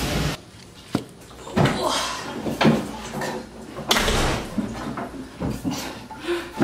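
A metal paint can being handled on a plastic tarp: a handful of irregular knocks and clunks with some rustling between them.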